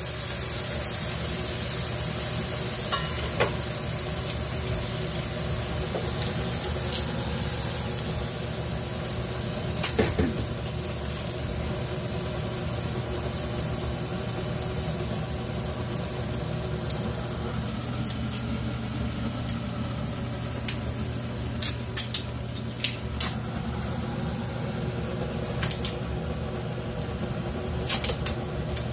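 Thinly sliced frozen beef sizzling steadily in a nonstick frying pan, with a few sharp clicks of chopsticks against the pan as the meat is pushed and pulled apart.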